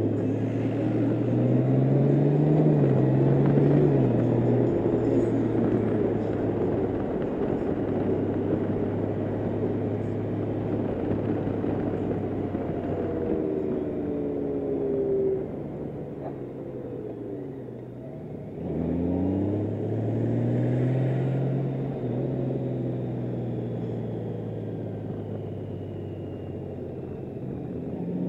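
Honda Gold Wing's flat-six engine running as the motorcycle rides through traffic, with wind and road noise. The engine note rises under acceleration in the first few seconds, fades and drops for a couple of seconds past the middle, then rises again as it pulls away.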